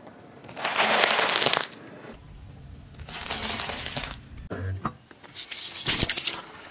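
A car tyre rolling over a pile of chopped lettuce, the leaves crunching and tearing, loudly once and then more softly. Near the end, a burst of sharp cracks as a tyre crushes small hard round objects.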